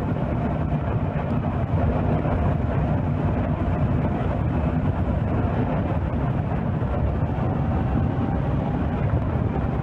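Kawasaki Versys 650 parallel-twin engine running steadily at cruising speed, mixed with wind and road noise as heard on the moving motorcycle.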